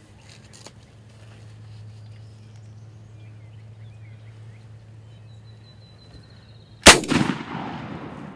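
A single shotgun blast about seven seconds in, followed by a rolling echo that fades over about a second and a half. Before it, only faint birdsong.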